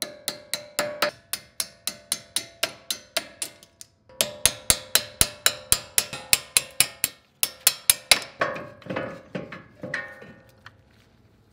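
Hammer tapping a 1/4-inch socket extension used as a punch to drive the locking pins out of a Dana 44 front disc brake caliper: quick metal-on-metal strikes, about five a second, with a ringing note, in three runs with short breaks about four and seven seconds in. Softer knocks near the end.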